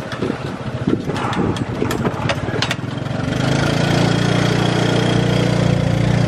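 Tuk-tuk engine running under way, with a few sharp rattles and knocks in the first three seconds. About three seconds in, the engine settles into a louder, steady hum.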